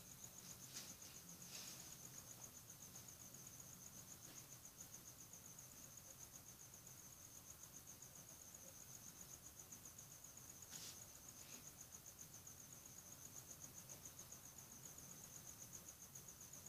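Faint, steady chirping of a cricket: a high, evenly pulsed trill that does not let up, with a few soft clicks near the start and again about eleven seconds in.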